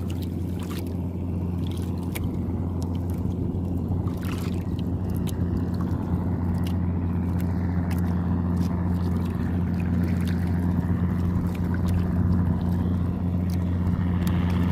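Water slapping and splashing against a small wooden outrigger boat rocking on choppy sea, over wind and a steady low hum, with scattered small clicks and knocks from the hull.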